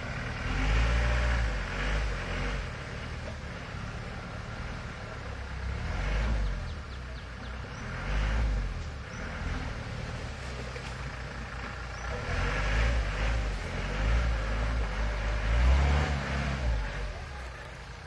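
Off-road 4x4's engine revving in repeated surges with steadier, quieter running between them. The longest and loudest stretch of revving comes about twelve to seventeen seconds in.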